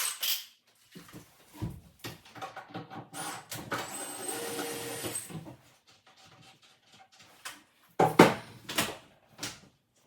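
Knocks and clatter of kitchen cabinets being demolished, with a steady noisy stretch of about two seconds in the middle and a few loud impacts near the end.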